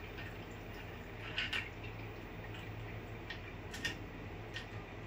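A few soft clicks and rubs of rubber eyecups being worked onto a stereo microscope's eyepieces by hand, over a steady low hum.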